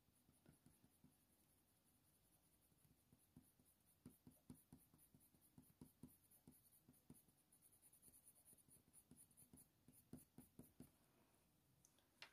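Very faint scratching of a Faber-Castell Polychromos coloured pencil making short shading strokes on hot-press watercolour paper. The strokes come in small clusters, mostly in the middle and again near the end.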